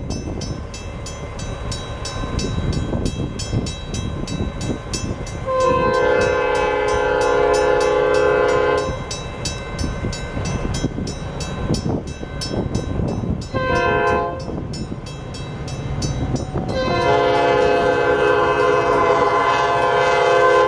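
Metra commuter train's diesel locomotive sounding its multi-tone air horn for a grade crossing: a long blast about six seconds in, a short one near the middle, and another long blast near the end, over the low rumble of the approaching train. Under it, the crossing signal's warning bell rings steadily with rapid, evenly spaced strikes.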